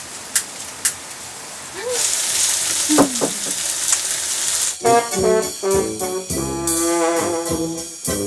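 Food sizzling in a frying pan. From about five seconds in, an instrument plays a few held notes.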